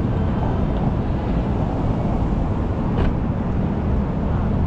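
Busy city street ambience: a steady low rumble of traffic passing close by, with a brief click about three seconds in.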